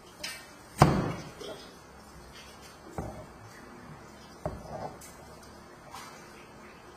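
Kitchen knife cutting through raw taro and knocking on a plastic cutting board: a few irregular chopping knocks, the loudest about a second in.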